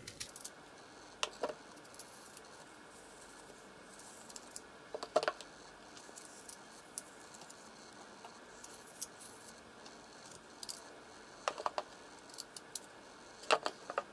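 Knife cutting and coring a peeled apple over a plastic tray: scattered sharp clicks and knocks, the loudest about five seconds in and near the end.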